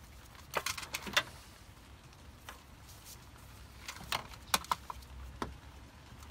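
Ignition wires being handled and their rubber boots pushed into place on a Honda Civic engine: two bursts of short clicks and taps, about half a second in and again around four to five seconds in.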